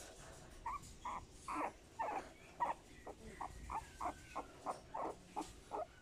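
Young Boston terrier puppy making a string of short, squeaky whimpers, about two to three a second and coming quicker in the second half.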